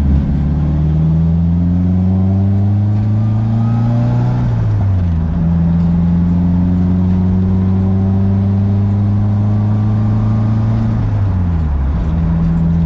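Nissan SR20DET turbocharged four-cylinder in an S14 240SX accelerating on the road: the engine note climbs for about four and a half seconds, drops sharply as it shifts up, climbs slowly again and falls back near the end.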